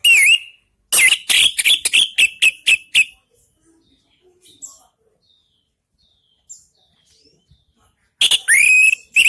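Orange-headed thrush singing loudly: a short phrase at the start, then a run of about eight quick repeated notes from about one to three seconds in, and after a pause of several seconds another loud phrase with a rising note near the end.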